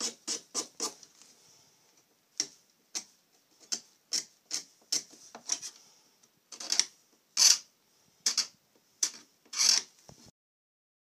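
Short scraping strokes of a small hand file along the freshly hacksawed edge of a hard rudder-yoke bar, taking off the rough edges. A quick run of strokes comes first, then single strokes about every half second, the last few louder; the sound cuts off abruptly near the end.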